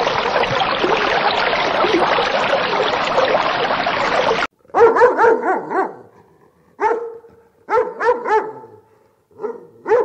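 A dense, busy wash of noise that cuts off suddenly about halfway through, followed by a dog barking: short, pitched barks in four or five quick groups.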